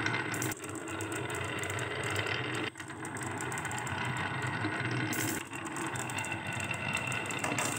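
Many glass marbles rolling down a carved wavy groove in a wooden beam, a continuous rolling rumble full of small clicks as they knock against each other and the wood. It dips briefly about three times.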